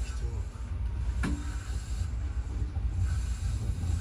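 JR 205 series electric commuter train running with a steady low rumble, with one sharp clack about a second in.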